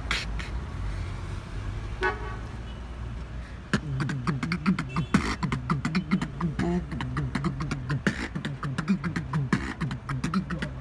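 Beatboxing with a hand held to the mouth: a buzzing lip sound in the first few seconds. From about four seconds in, a fast run of mouth-made kicks, clicks and snares over a hummed bass line that moves up and down.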